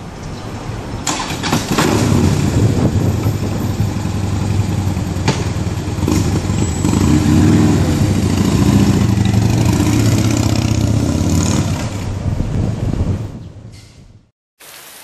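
Harley-Davidson FXDF Fat Bob CVO's V-twin running through Screamin' Eagle mufflers, with a few sharp clicks in the first seconds, loudest in the middle, then dying away near the end.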